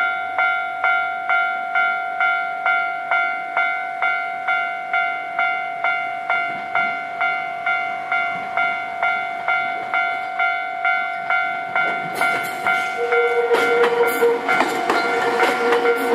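Japanese level-crossing alarm bell ringing in an even, steady clang of just under two strikes a second. About twelve seconds in, a train begins passing over the crossing, and its wheel and rail noise rises over the bell with a steady tone.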